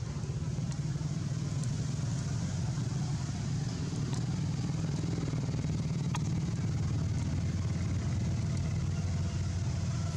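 Steady low rumble of a motor vehicle engine running, with a couple of faint clicks.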